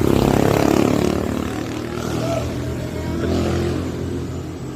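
Hino AK1J bus's diesel engine running through a modified 'ngorok' (snoring) exhaust, a deep rumble. It is loudest in the first second, then eases off a little.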